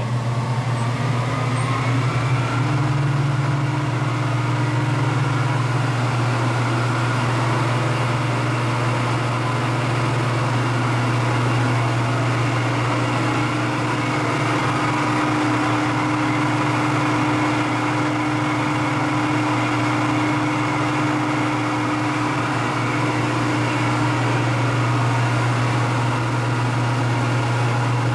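Alternator test stand running, its drive turning a belt-driven automotive alternator: a steady low hum with a whine that rises slightly over the first couple of seconds and then holds steady.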